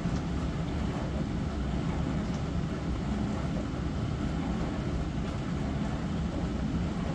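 Small glass-front Hava dishwasher running its wash cycle: a steady low hum from the machine with water spraying over the dishes inside.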